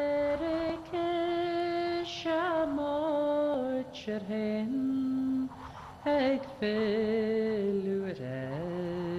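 A single unaccompanied voice singing a slow melody in long held notes, stepping from pitch to pitch with slight wavering. The phrases are broken by short pauses.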